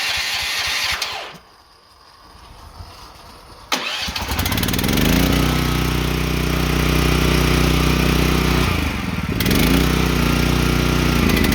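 Kohler gas engine on a hot-water pressure washer being started: a short noisy attempt in the first second, a pause, then the engine catches about four seconds in, rises to speed and runs steadily, with a brief dip in pitch about two-thirds of the way through.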